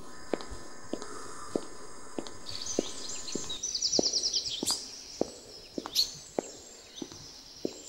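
Footsteps at a steady walking pace, with small birds chirping from about two and a half seconds in.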